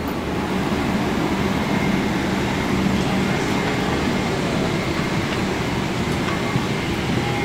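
Steady rushing air and low hum of the cabin air-conditioning and ventilation inside a parked Boeing 777-300ER.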